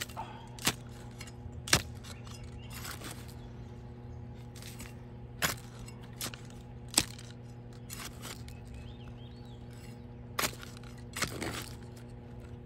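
A small camp shovel digging into stony, gravelly soil: irregular sharp strikes of the steel blade against earth and stones, each followed by a short scrape, a second or a few seconds apart. A steady low hum runs underneath.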